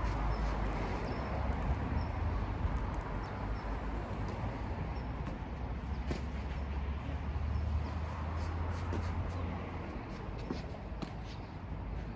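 Steady outdoor background noise with a low rumble, and a few faint sharp knocks of tennis balls being struck during a rally.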